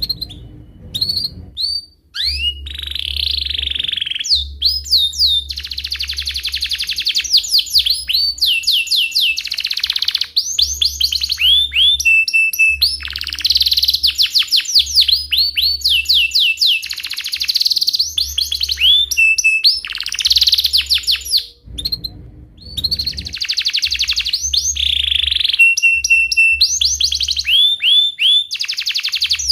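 Domestic canary singing a long, nearly unbroken song of fast repeated chirps and rolling trills, with a few short held whistled notes.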